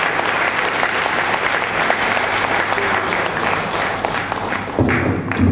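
Audience applauding, a dense patter of many hands clapping. A voice cuts in briefly near the end.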